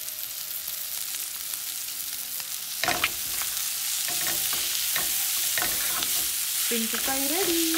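Shrimp frying in hot oil in a pan with curry leaves just added, sizzling steadily while a spatula stirs through it. There are a couple of sharp knocks about three seconds in, and the sizzle is a little louder after them.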